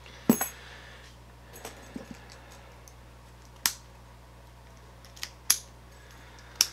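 Small metal clicks and clinks from handling a freshly picked ACE brass padlock, its steel shackle and the picking tools: scattered sharp clicks, the loudest about a third of a second in.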